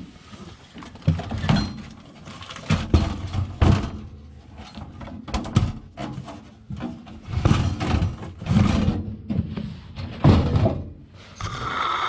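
Sheet-metal housing of a Dometic RV furnace being shifted and pushed back into its compartment: a series of irregular knocks and thunks with short scrapes of metal across the floor.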